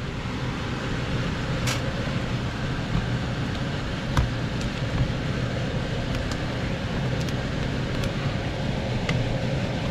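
Steady running noise of an air handler's indoor blower, with a low hum, and a few faint clicks as the metal access panel is handled.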